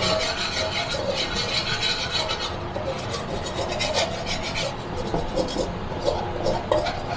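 Metal spatula scraping and stirring against a wok in quick repeated strokes, breaking up sugar that is melting into a sticky caramel.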